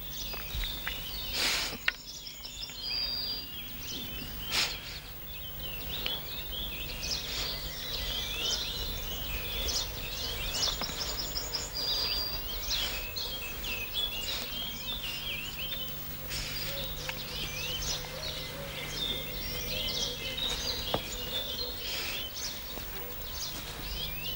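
Several small songbirds chirping and singing, many short overlapping calls, over a steady low hum. A few short knocks come in the first few seconds.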